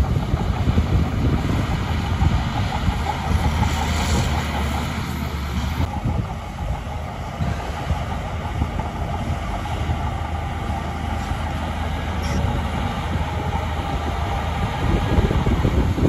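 Heavy diesel earthmoving machinery running steadily under load, with a continuous low engine rumble.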